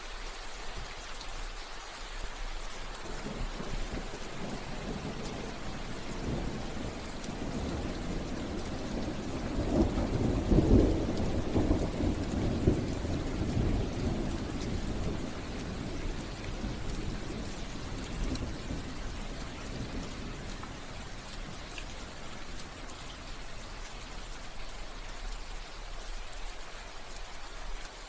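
Steady rain falling, with a long roll of thunder that swells a few seconds in, is loudest about a third of the way through, and slowly dies away.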